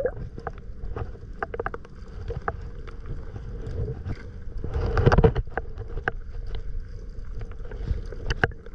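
Shallow seawater splashing and sloshing, with scattered small clicks and knocks and a louder rush of splashing about five seconds in.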